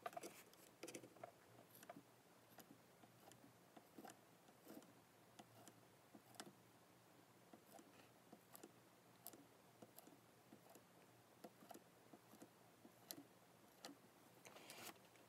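Near silence with faint, irregular light ticks, about one or two a second, as a soldering iron tip is touched and dragged along the carbon traces of an LCD ribbon cable to re-bond its heat-sealed connection.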